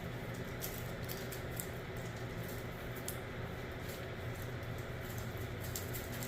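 Steady low hum with faint, scattered light clicks.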